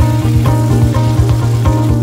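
Instrumental background music with a steady beat and bass line, over the sizzle of mushrooms frying in a pan.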